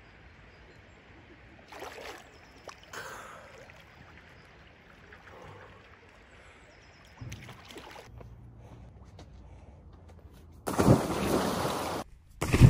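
River water lapping and gurgling close to the microphone, with a few brief louder sloshes. Near the end, loud splashing as a swimmer thrashes in the cold river water.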